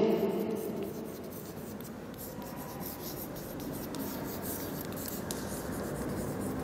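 A stick of chalk writing on a chalkboard: quiet scratching strokes with many short ticks as the chalk meets the board.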